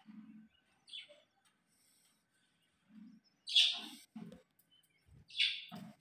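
Alexandrine parakeets calling: a short squawk about a second in, then two loud, harsh squawks of about half a second each, a couple of seconds apart.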